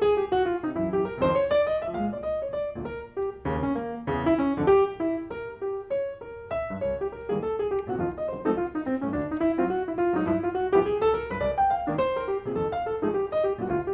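Background piano music: quick runs of notes rising and falling.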